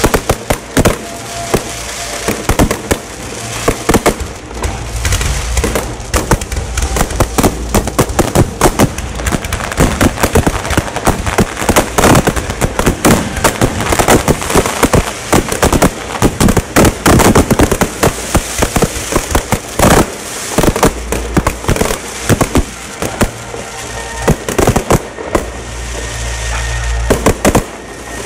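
Aerial fireworks going off very close overhead: a dense barrage of sharp bangs from bursting shells in quick succession, thinning a little near the end.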